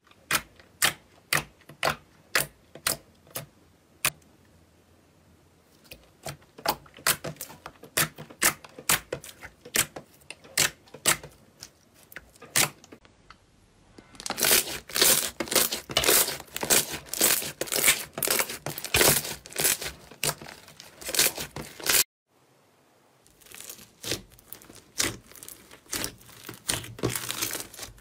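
Hands squeezing and poking slime, giving wet clicks and pops. At first there are single sharp pops about two a second, then denser, louder popping and crackling. After a short break near the end comes the crunchy crackle of foam-bead slime being stretched.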